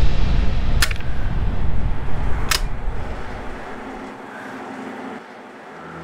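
Low rumbling drone of a dramatic background score fading away over about four seconds, with two sharp hits, one about a second in and one about two and a half seconds in. Held low bowed-string notes begin right at the end.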